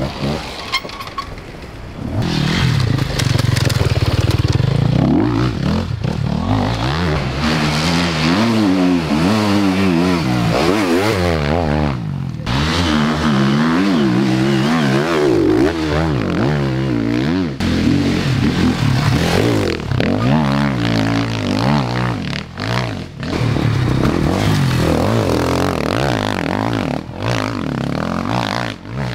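Enduro dirt bike engines revving hard, their pitch climbing and dropping again and again as the bikes accelerate, shift and back off.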